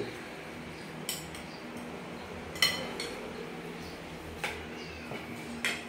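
Spoons and cutlery clinking against ceramic plates and bowls as food is dished out at a table, four sharp clinks spaced a second or two apart.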